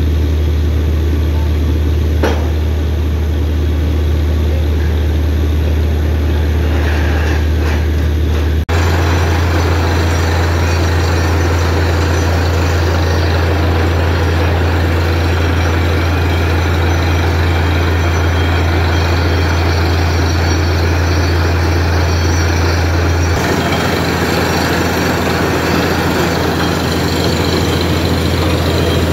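Borewell drilling rig's heavy diesel engine and air compressor running with a steady deep drone. The drone shifts abruptly twice, about nine and twenty-three seconds in.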